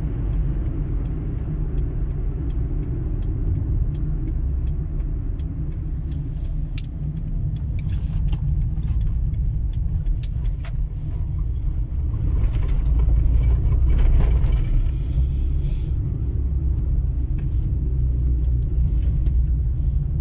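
Car cabin noise while driving: a steady low rumble of engine and tyres. A run of light, evenly spaced ticks comes through the first half. The road noise grows louder for a few seconds around the middle.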